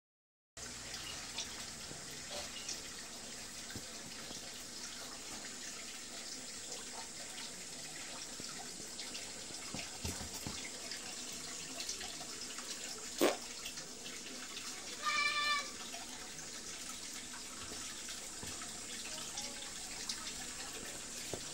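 A cat meows once, briefly, about two-thirds of the way through, over a steady hiss. A single sharp knock comes a couple of seconds before it.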